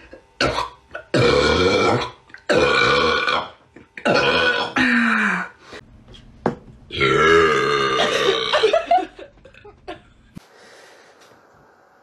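Young women belching, one loud burp after another: three or four pitched belches of about a second each, then a drawn-out one lasting about two seconds.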